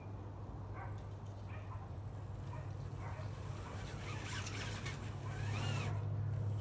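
Small electric RC rock crawler's motor and gears whining in bursts as it crawls over stone blocks, the pitch rising and falling with the throttle. Tyres scrabble on the stone. It gets louder in the second half, over a steady low hum.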